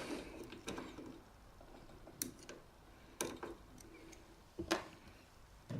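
Faint, scattered clicks and taps as a screw is loosened and parts of a band sealer's wheel assembly are handled, about six short clicks spread unevenly.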